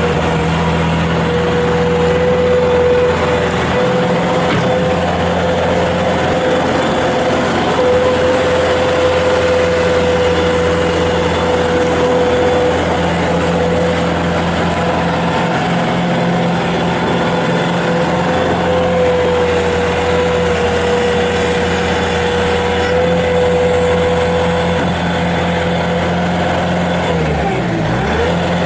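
Bobcat S220 skid steer's Kubota turbo diesel engine running steadily with a steady whine over the engine note. Near the end the pitch dips and recovers twice, as the engine is pulled down and comes back up.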